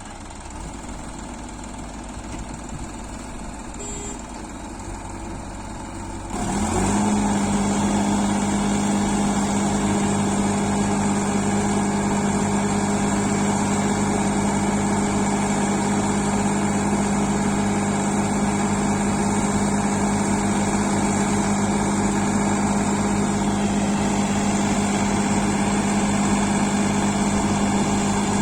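Heavy vehicle engine running quietly, then about six seconds in it revs up quickly and holds a loud, steady high speed.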